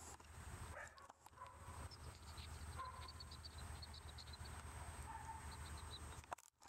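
Faint outdoor ambience: small birds twittering in quick high chirps for a couple of seconds, over a low steady rumble.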